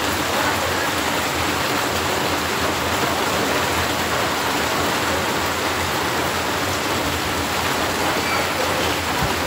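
Heavy rain pouring down in a steady, even rushing hiss.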